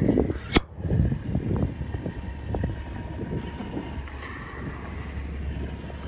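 Wind buffeting the microphone in uneven gusts over a steady low rumble, with one sharp click about half a second in.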